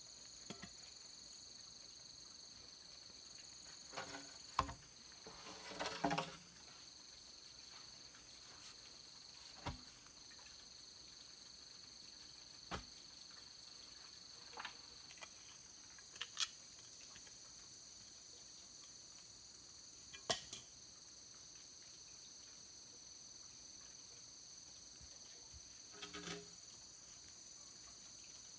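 Steady high-pitched insect chorus, like crickets chirring, with a few scattered knocks and scrapes from digging a post hole by hand and handling bamboo poles, the busiest cluster about four to six seconds in.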